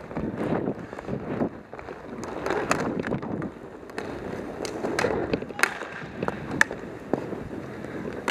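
Roller hockey play: inline skate wheels rolling and scraping on the rink floor, with scattered sharp clacks of sticks and puck. The loudest clack comes about two-thirds of the way through.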